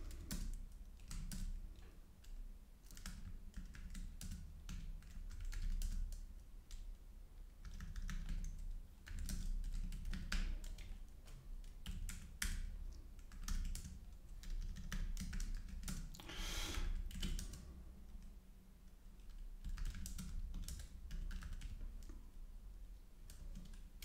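Computer keyboard typing: irregular runs of keystrokes with short pauses between words and lines, over a steady low hum. A brief rush of noise comes about two-thirds of the way through.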